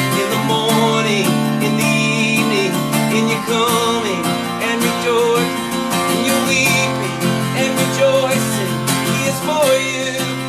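A man singing a worship song while strumming a steel-string Taylor acoustic guitar fitted with a capo.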